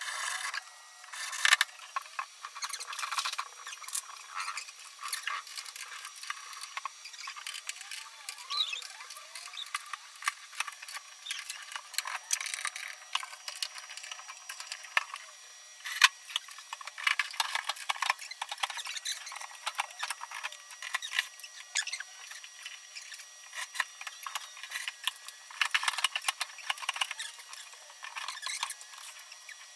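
Sped-up sound of wardrobe assembly work: a dense run of rapid clicks, knocks and clatter from panels, drawers and metal hardware being fitted, with occasional high squeaky chirps.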